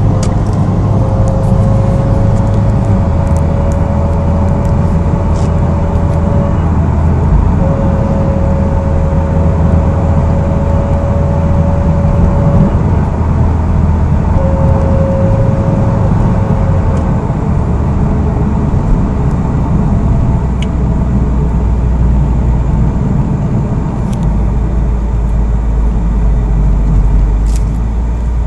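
Mitsubishi Lancer Evolution X MR's turbocharged four-cylinder under way, its engine and road noise steady throughout, with a thin high whine that comes in three times in the first half and drops out between and after. The whine is a fault the owner hears only when accelerating in the higher gears; it goes away when he lifts off the throttle.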